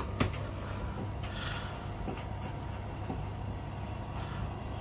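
Steady low hum of a running appliance, with a sharp click shortly after the start and a few faint ticks near the end as the program dial of a Bosch front-loading washing machine is turned.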